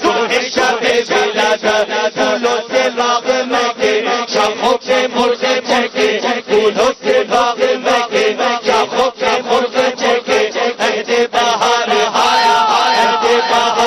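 Naat, a devotional Islamic song: voices chanting in a fast, even rhythm of about four pulses a second, moving into smoother, drawn-out melodic lines near the end.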